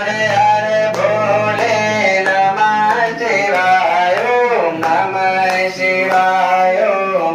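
Devotional song: a solo voice singing a flowing melody over a steady low drone and instrumental accompaniment.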